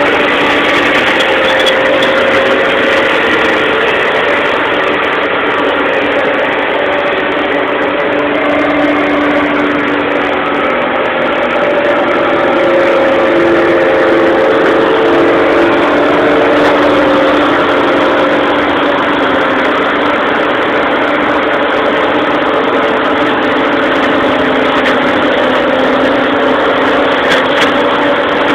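Tractor engine running steadily while driving a boom-arm flail mower that is cutting a hedge: a continuous drone with a steady mid-pitched hum and a dense whirring of the cutter head.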